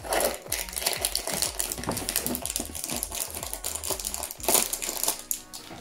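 Cardboard advent calendar door being pushed open and torn along its perforations, with a quick run of crackling, scraping and rustling as the product box inside is worked out of its compartment. The loudest crackle comes about four and a half seconds in.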